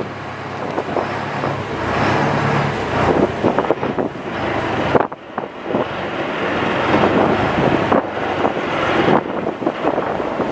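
Wind buffeting the microphone over the steady running of a small ferry's engine as the boat pulls into its landing slip; the noise dips sharply for a moment about five seconds in.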